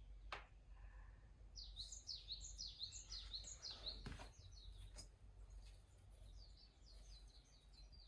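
Faint songbird singing a quick run of high, falling chirps for about two seconds, then a softer run near the end, over a low steady rumble of outdoor ambience. A few sharp clicks sound, one at the start and two in the middle.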